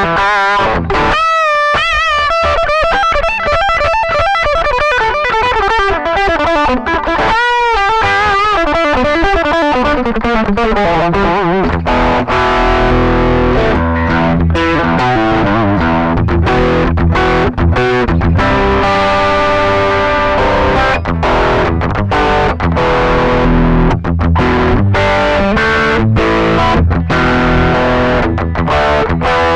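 Electric guitar through overdrive distortion, playing sustained lead notes with wavering vibrato for about the first ten seconds, then switching to heavy low chord riffing.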